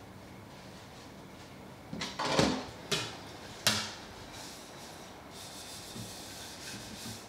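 Washing up at a kitchen sink: a short rush of noise about two seconds in, then two sharp clinks of crockery being set down, and in the last couple of seconds water starts running softly from the tap.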